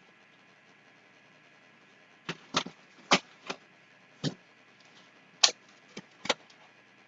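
A bag of jalapeño peppers being handled and the peppers set down on a tabletop: about eight short, sharp clicks and knocks at uneven intervals, starting about two seconds in.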